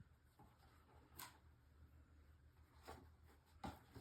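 Near silence with a few faint, brief rustles and taps as a picture book is shaken and handled.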